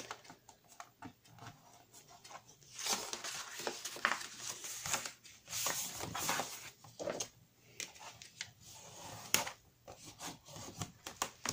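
Thick card stock being creased on a folding board and folded in half, the fold pressed down firmly: irregular rubbing and scraping strokes of paper on board, with a few light taps.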